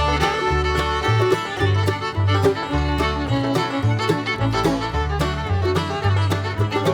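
Bluegrass-style music with fiddle and banjo over a steady walking bass line.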